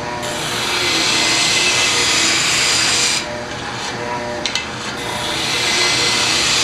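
Drum sander running while a wooden workpiece is pressed against the spinning sanding drum in two passes, each a few seconds of loud rasping hiss over the motor's steady hum. There are two light knocks between the passes.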